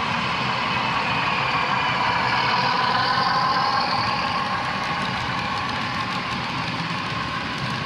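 HO-scale model diesel locomotive's onboard sound playing a running diesel engine as it passes, with freight cars rolling on the track, a little louder in the middle.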